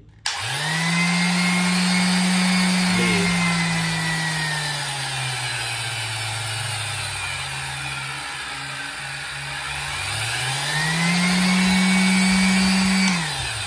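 Electric finishing sander's motor running through a dimmer-type speed controller. It starts just after the opening and comes up to full speed, then falls to a lower pitch over a few seconds as the controller is turned down. It rises back to full speed and is switched off near the end, winding down.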